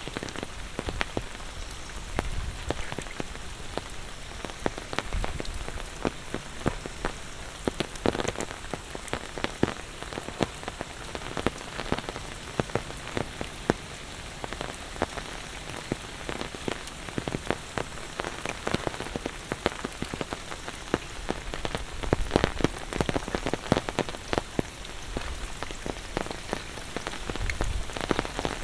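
Monsoon rain falling steadily, with many close raindrops ticking irregularly.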